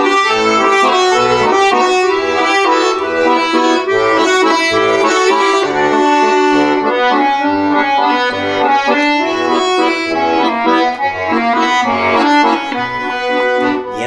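Bayan (Russian chromatic button accordion) playing an instrumental interlude of a folk-style song without voice: a melody over sustained chords, with bass notes pulsing at a regular beat underneath.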